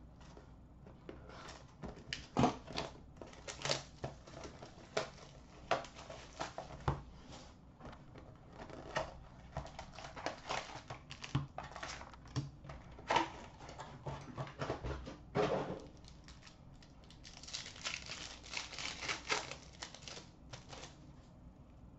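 Plastic shrink-wrap and cardboard packaging of a sealed hockey card box being peeled, torn and crinkled open by hand, with irregular crinkles, rips and taps. Near the end the crinkling turns denser and quicker as the pack wrapping is worked open.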